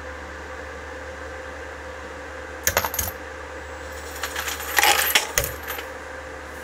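Brass 6mm ARC rifle cases clinking as they drop through the case feeder's tube into the annealer and fall out onto the brass pile. There is a short metallic clatter just under three seconds in and a longer, louder one from about four seconds in, over the steady hum of the running machines.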